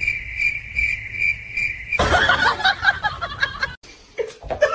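A cricket chirping in an even, pulsing trill about twice a second. About two seconds in it stops abruptly and gives way to louder laughing voices.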